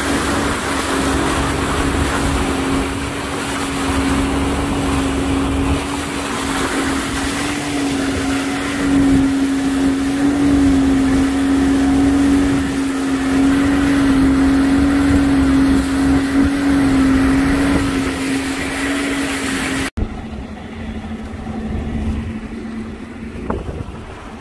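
Outboard motor of a small fishing boat running steadily under way, a constant engine hum with rushing wind and water over it. After a cut about twenty seconds in, the engine is quieter and lower, with lapping water, as the boat moves slowly in the harbour.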